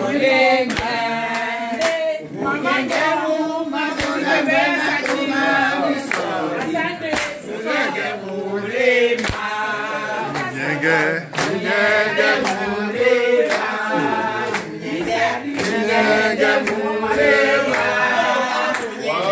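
A group of men and women singing together unaccompanied, with hand claps through the song.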